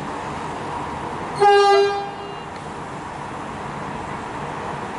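A single short horn toot from a Siemens electric suburban train, about a second and a half in, over a steady background hum.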